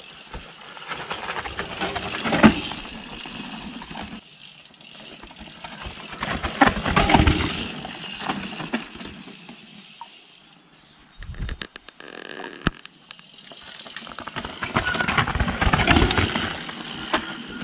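Mountain bikes riding down a rough dirt-and-rock downhill trail: knobbly tyres on loose ground with the bikes rattling and clattering over bumps. The noise rises and falls in three long surges, with a brief lull about two thirds of the way through.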